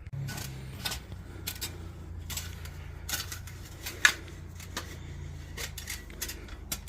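Scattered small metallic clicks and clinks from hand tools or metal parts being handled, over a steady low hum, with one sharp click about four seconds in.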